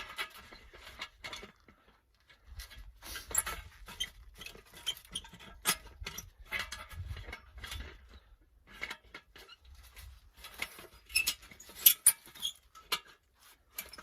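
Handling noise as a stovepipe damper plate is fitted: irregular light clicks, taps and scrapes of small metal parts, with rustling.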